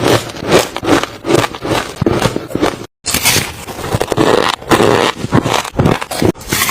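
Close-up chewing of soft, crunchy ice: a quick run of crunching bites, about three a second, with a brief dropout about three seconds in.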